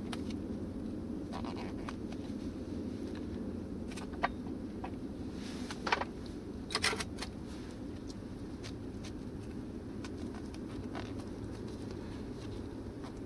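A few light clicks and taps of a knife and fingers against small ceramic bowls and a wooden chopping board while mushrooms are scooped out, loudest about four, six and seven seconds in. Under them is a steady low rumble.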